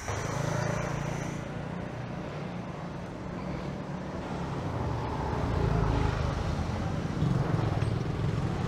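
Road traffic, with a motor vehicle's engine running close by in a steady low hum that swells a little midway.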